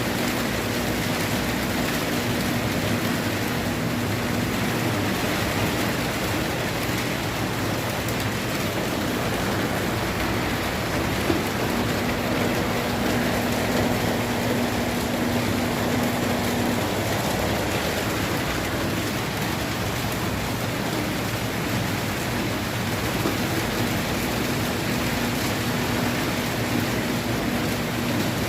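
Consul 9 kg washing machine running a spin cycle with two bedsheets: a steady rushing, water-like noise of the drum and water, with a low motor hum that comes and goes three times.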